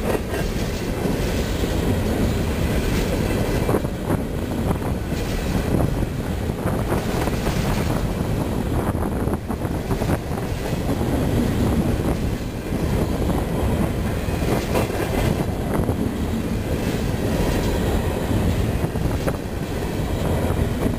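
Freight cars loaded with shipping containers rolling past close by: a steady rumble of steel wheels on rail, with irregular clacks as the wheels run over the track.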